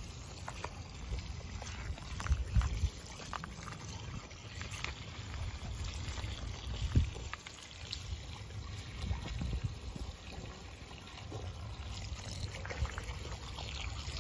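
Water trickling and splashing from an open garden hose as puppies bite and lap at the stream, with scattered small splashes and ticks. Under it runs a low rumble, with a few louder bumps.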